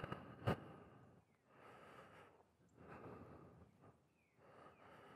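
A man's breathing close to the microphone, about four slow breaths in and out, with one sharp click about half a second in.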